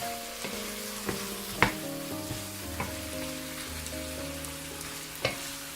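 A spice-coated chicken and onion mixture frying in a pot on reduced heat, sizzling while a spoon stirs it and knocks against the pot a few times, the sharpest knock about a second and a half in. Soft background music plays underneath.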